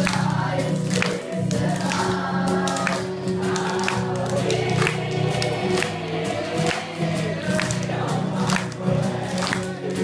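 A group of young voices singing a song together to acoustic guitar accompaniment, with a steady beat.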